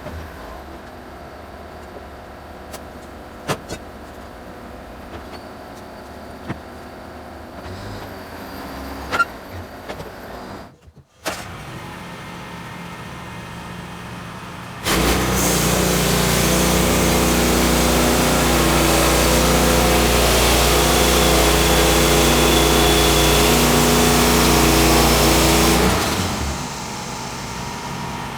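Engine running steadily, with scattered knocks earlier on. About fifteen seconds in it becomes much louder and hissier for roughly eleven seconds, then drops back to a lower running level.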